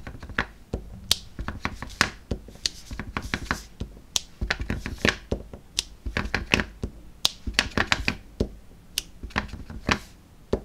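Clear acrylic stamp block dabbed again and again on a VersaMark ink pad and pressed onto cardstock to stamp snowflakes: a quick, irregular run of sharp taps and clicks.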